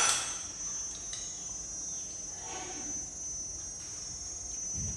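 Steady high-pitched chirring of insects, such as crickets, with a spoon clinking against a bowl at the very start.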